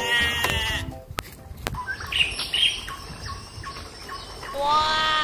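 Two bleats: a wavering one at the start and a longer one near the end that falls in pitch, with short bird chirps in between.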